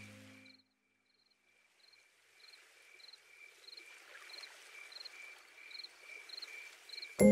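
Background music fades out in the first half second. After a brief silence, faint, evenly repeated insect-like chirps, about three every two seconds, run over a soft hiss. Music comes back in abruptly at the very end.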